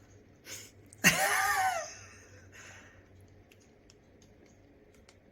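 A person's brief high-pitched vocal sound about a second in, rising and falling in pitch, with short breathy sounds before and after it, then faint ticks.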